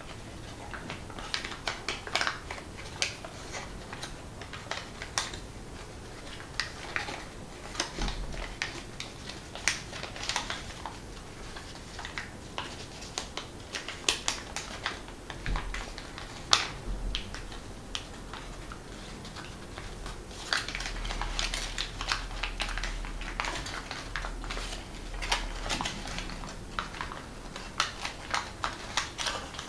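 Folded origami paper crackling and crinkling as a creased unit is pressed and collapsed into shape by hand: a string of irregular sharp clicks and crinkles, busiest about two-thirds of the way through.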